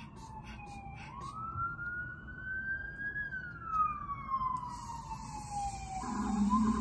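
Emergency vehicle siren in a slow wail, its pitch falling, rising for about two seconds, then falling again. Near the end a low steady hum comes in.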